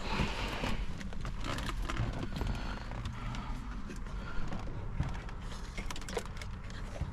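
Irregular clicks and knocks of parts and wiring being handled during an in-car install, over a steady low rumble.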